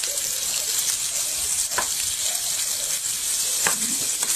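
Food frying in hot oil in a pan, a steady sizzle, with two sharp clicks about two seconds apart.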